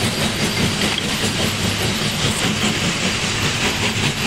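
Steady, loud machinery running noise with a low hum, unbroken throughout.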